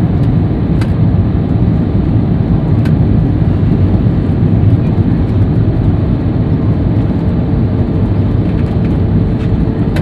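Airbus A320 cabin noise during the approach to landing: a loud, steady, deep rumble of engines and rushing air, heard from inside the cabin at a window seat.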